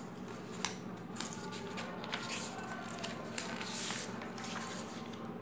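Sheets of paper being handled and shifted on a desk: a few light taps and rustles, with a longer rustle of paper sliding about three and a half to four seconds in, over a steady low hum.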